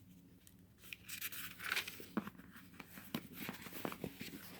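Thin pages of a Bible being leafed through: soft, irregular rustling and crinkling with small clicks.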